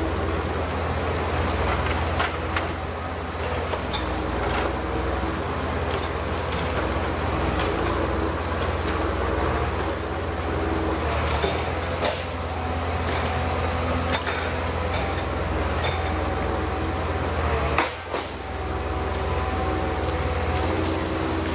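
Heavy machine's engine running steadily, with scattered sharp knocks and clanks over it.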